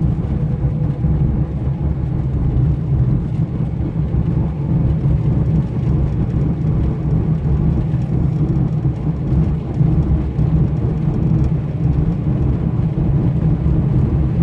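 Steady in-cabin drone of a 1977 Honda Civic CVCC's four-cylinder engine, running at low road speed mixed with tyre and road noise, heard from inside the car.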